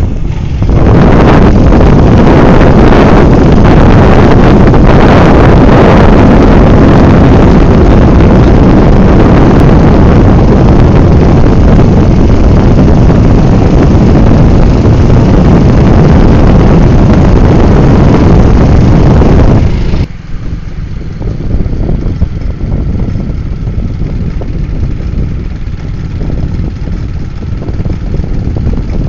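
Heavy wind buffeting on the microphone over a vehicle's running engine, filmed while riding along a road. About twenty seconds in the noise drops off sharply to a quieter, low rumble.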